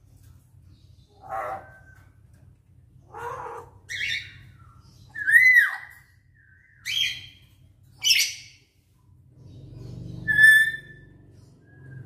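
Caged lories giving loud squawks and whistles, about seven separate calls a second or so apart, the loudest a rising-and-falling whistle about halfway through. The bird is practising its calls.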